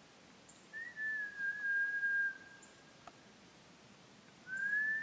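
A person whistling two notes: a long, nearly level note about a second in, then a shorter rising note near the end. A faint single click between them.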